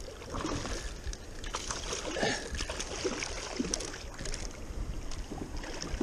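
Water splashing and sloshing beside a kayak, in irregular bursts, as a hooked coho salmon thrashes at the surface and the paddle blade works the water.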